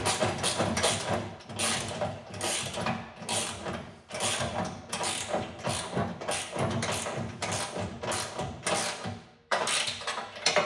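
Hand ratchet wrench clicking in runs of quick back-and-forth strokes with short pauses, tightening bolts; it stops abruptly near the end.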